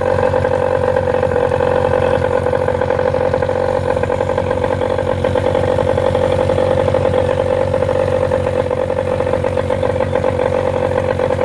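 Mariner 15 hp outboard motor running steadily out of the water on a hose-fed flushing kit, its exhaust open to the air.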